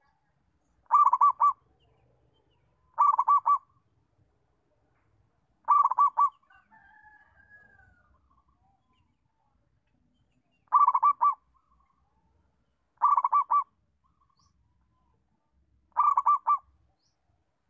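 Zebra dove (perkutut) cooing: six short phrases of quick staccato coos, each about half a second long, spaced a few seconds apart.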